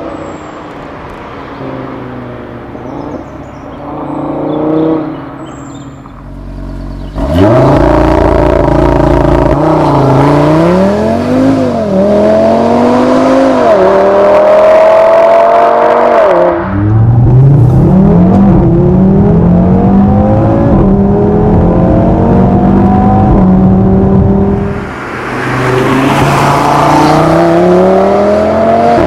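Audi RS3's turbocharged inline five-cylinder engine, running quietly at low revs, then about seven seconds in pulling hard: the engine pitch climbs, dips briefly at gear changes and falls away sharply partway through, then climbs again in a long run and once more near the end.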